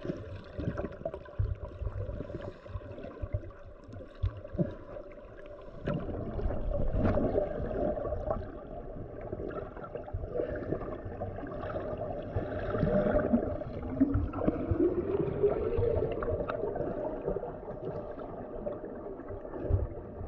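Muffled underwater audio of scuba regulator exhaust bubbles gurgling over a steady low hum, louder from about six seconds in, with a tone that rises in pitch a little past the middle.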